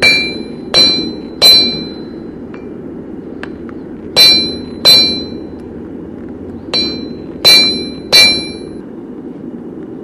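Hand hammer striking hot metal in a steel forming block, doming a flat piece into a rivet head: eight clanging blows in groups of three, two and three, each ringing on briefly.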